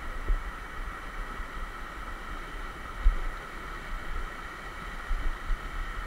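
Steady rush of waterfall water splashing down a rock face, with low uneven rumbles on the microphone and a single knock about three seconds in.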